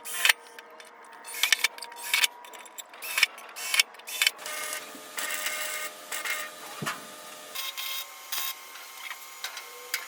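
Wire-feed welder arc crackling and sputtering in short, irregular bursts that start and stop over and over, with a faint steady hum underneath.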